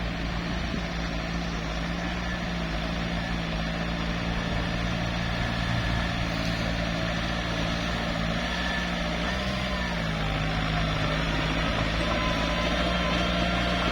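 Small bulldozer's diesel engine running steadily, its note wavering briefly about two-thirds of the way through before settling slightly lower.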